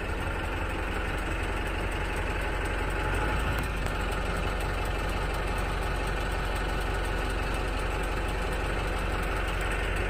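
Minibus engine idling steadily, heard from inside the passenger cabin.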